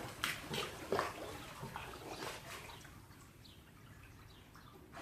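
Water splashing and sloshing in a swimming pool: several short splashes in the first two seconds, then dying down to small lapping.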